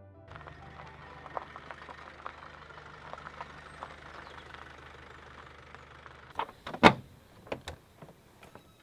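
Panel van's engine running steadily, then switched off about six seconds in. A few clicks and a loud clunk follow as the driver's door is unlatched and opened.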